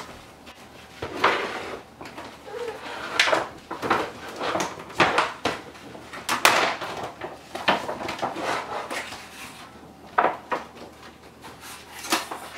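Cardboard box packaging being handled as a hiking stick is pulled out of it: irregular scrapes, rustles and knocks.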